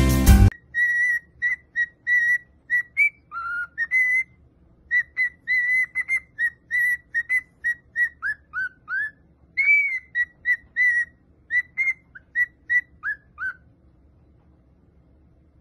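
Cockatiel whistling a long string of short clear notes, about three a second. Most are on one pitch, with some sliding down, and the whistling stops near the end.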